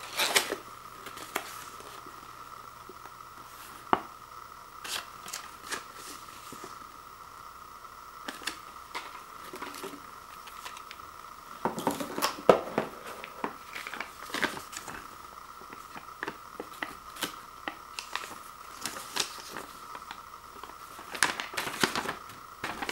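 Handling noise from unpacking a heating pad: paper inserts and packaging rustling and crinkling, with scattered clicks and taps. The busiest rustling comes about half a second in, around twelve seconds in, and near the end as the instruction leaflet is unfolded.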